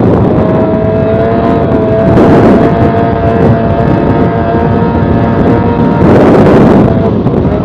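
Yamaha 20 hp outboard motor on a racing boat running steadily at high speed with a steady drone. Two louder rushes of water and wind noise come as the hull crosses the chop, about two seconds and six seconds in.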